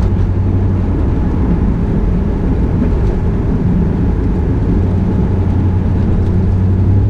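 Steady low drone of a 1993 Chevrolet Camaro Z28's LT1 V8 and road noise inside the closed cabin while cruising. It sounds dull and muffled through a GoPro 5 on its wind-reduction setting.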